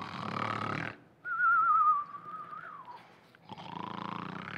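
Cartoon-style comic snoring: a rasping snore, then a wavering whistle on the out-breath that slowly slides down in pitch, then a second rasping snore near the end.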